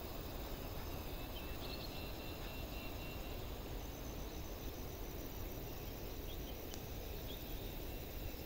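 Faint outdoor ambience: a steady low background noise with thin, high insect trills, one about two seconds in and a higher one midway.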